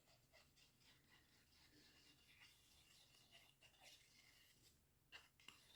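Near silence with faint light rubbing and small scattered ticks, a little louder about five seconds in: a glue applicator being run along card.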